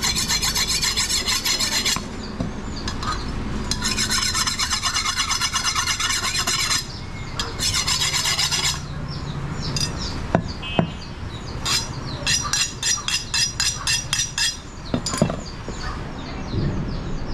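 Butcher's cleaver blade being sharpened with a hand-held metal sharpener: rapid rasping metal-on-metal strokes in several bursts of a few seconds each, then a run of slower, separate strokes, about four or five a second, near the end.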